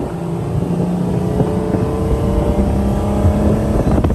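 Malibu Sunsetter ski boat's inboard V8 engine running steadily under way.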